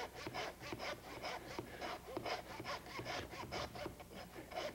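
Handsaw sawing through a lamb loin to split it in half, in quick back-and-forth strokes, about four to five a second.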